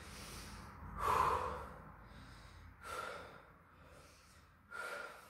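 A man breathing audibly, catching his breath after a plank hold: about four separate breaths, the loudest about a second in.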